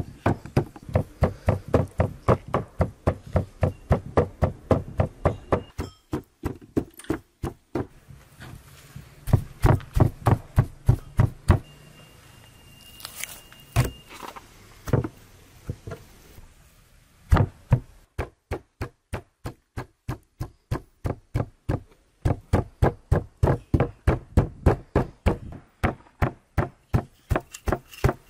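Meat cleaver chopping raw lamb on a wooden cutting board, mincing it by hand. Rapid, even knocks about four a second, breaking off a few times.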